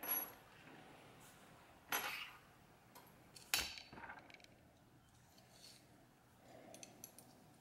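Faint metallic clicks from a digital caliper being handled: its jaws closed and zeroed, then slid open. There are three sharper clicks in the first four seconds and a few soft ticks near the end.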